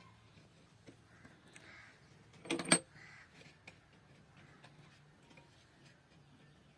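A crow caws once, a short harsh call about two and a half seconds in, over faint light ticks and scrapes of hand work on the saw.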